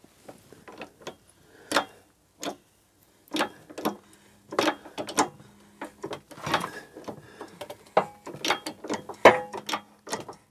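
Workshop press pushing a crank pin into a Villiers engine's flywheel: a run of irregular clicks and knocks from the press and the metal parts, with a faint steady hum from about four seconds in.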